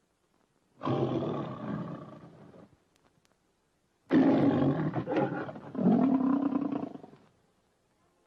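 Lion roaring twice, the MGM studio logo roar of Leo the Lion. The first roar comes about a second in and fades over nearly two seconds. A longer, louder second roar follows about four seconds in.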